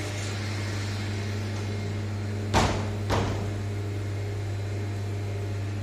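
Steady electrical hum from plant-room switchgear and drive equipment, centred on the 100 Hz buzz of 50 Hz mains. Around the middle, two sharp knocks about half a second apart, like a panel door or metal cabinet being handled.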